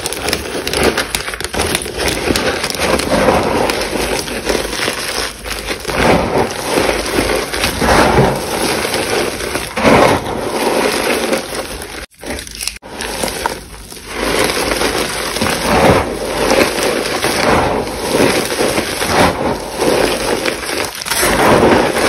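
Hands crushing and crumbling chalk: a dense, continuous gritty crackling that swells and dips, with two brief breaks about halfway through.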